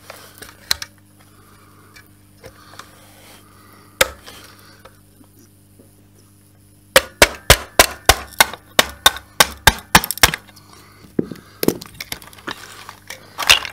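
Sharp knocks and clicks of a tool and metal parts on a Kirby G4 vacuum's aluminium casing as a part is worked loose: a few scattered ones, then a fast run of about four a second lasting some three seconds, then a few more near the end.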